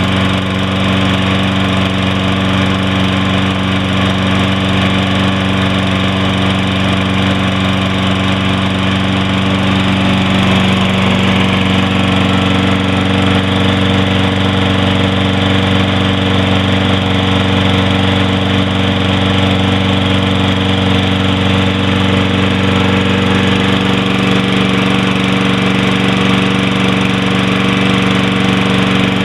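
Toro Recycler's 190cc single-cylinder Briggs & Stratton engine running steadily, smoking as it burns off oil left from a badly overfilled crankcase.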